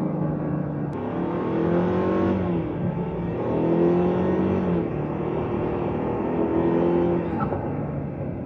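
2024 Ford Ranger's 2.3L EcoBoost turbocharged four-cylinder engine revved up three times and dropping back between blips, heard for its intake and engine sound.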